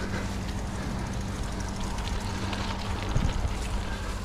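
Steady highway traffic noise with a low engine hum, heard from a bicycle riding along the roadside verge. A brief knock about three seconds in.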